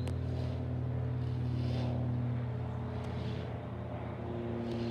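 Cessna 402C's twin turbocharged six-cylinder piston engines and propellers passing high overhead: a steady low drone that eases slightly after the middle.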